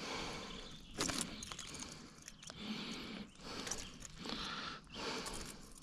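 Scraping, rustling and a few sharp knocks as a bass flops about while being held on a measuring board in a kayak, in short irregular bursts about once a second.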